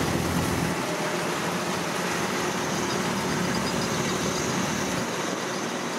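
Diesel engine of rice-harvesting machinery running steadily.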